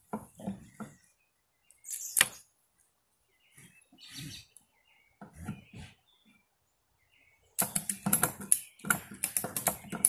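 Ratchet strap being cranked tight, with a fast run of ratchet clicks starting about three-quarters of the way in. Before that come a few scattered clicks and knocks of the strap and buckle being handled.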